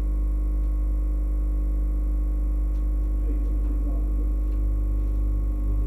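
Dishwasher drain pump running continuously with a steady electric hum. Running the drain pump nonstop without filling or washing is the sign that water has leaked into the machine's base and lifted the overflow float switch.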